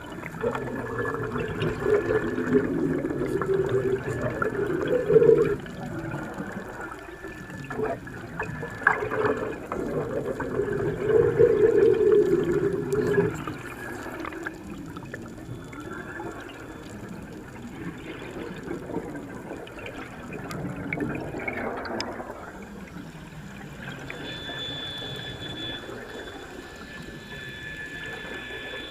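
Water bubbling and gurgling, loud and uneven for the first half, then settling to a quieter wash.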